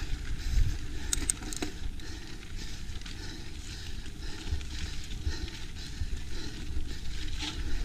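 Mountain bike rolling over dirt singletrack: tyre noise and low wind rumble on the mounted camera microphone, with a few sharp clicks and rattles from the bike, a cluster about a second in and more near the end.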